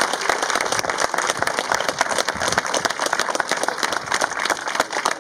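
Audience applauding: many people clapping together in a dense, steady round of applause.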